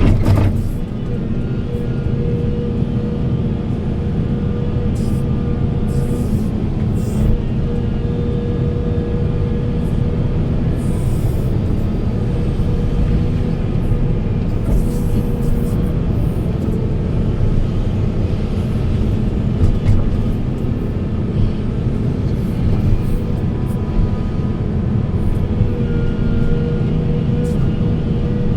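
Volvo 480 excavator's diesel engine running steadily under load, with a hydraulic whine that swells and fades and occasional short clanks.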